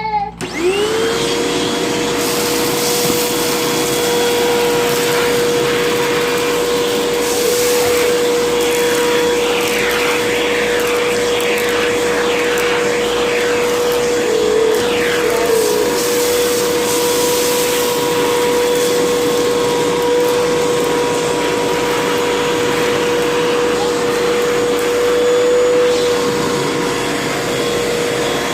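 Vacuum cleaner switched on, its motor spinning up to a steady high whine. Bits of crunchy debris crackle through the nozzle, mostly in the middle stretch.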